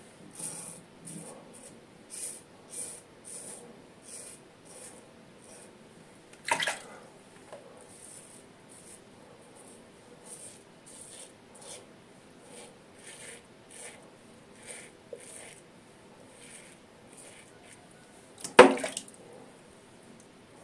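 Safety razor with a Feather Pro Guard blade scraping stubble on the neck in short strokes, roughly one or two a second. Two louder knocks come through, one about a third of the way in and a stronger one near the end.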